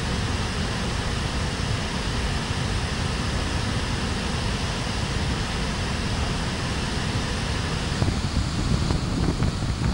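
Kaveri waterfall in heavy flood: a steady rush of falling water, growing a little more uneven in the last two seconds.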